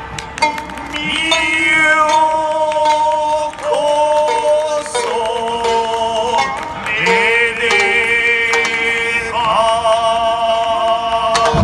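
Traditional Japanese bunraku accompaniment: a chanting voice holding long notes that slide between pitches, over a steady lower held tone, with a few sharp clicks.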